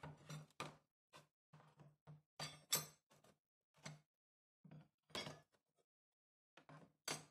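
Rusty steel files and rasps set down one by one into a plastic tub: a string of light knocks and metal clinks as they hit the tub and each other, the loudest a little under three seconds in.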